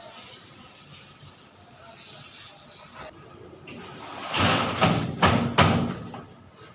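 Garden hose spraying water onto gravel, a faint steady hiss. About four seconds in, wet concrete poured from a bucket slops onto the slab deck, loud, in three or four surges.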